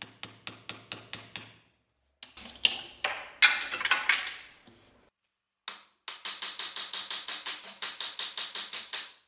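Hammer striking a steel punch set in the eye of a rusty forged mason's hammer head, knocking out the old wooden handle stub. Quick metal-on-metal blows with a ringing tail, in three runs: light taps that fade, louder uneven blows in the middle, then a steady run of about six or seven blows a second.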